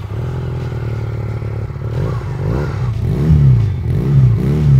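GPX Legend 250 Brighton motorcycle engine idling, then revved in a series of short throttle blips starting about two seconds in, each rising and falling in pitch.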